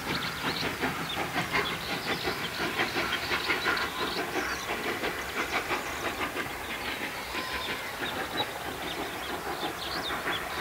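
Pt47 steam locomotive working away with its train: a fast run of exhaust chuffs with steam hiss, mixed with the wheels on the rails.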